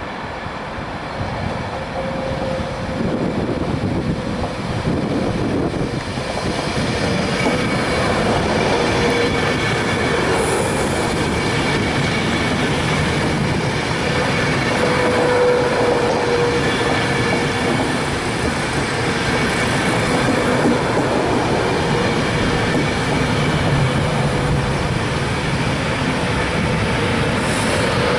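Class 390 Pendolino electric train running past along the platform: a steady rumble of wheels on rail that grows louder over the first several seconds, with a faint steady whine under it.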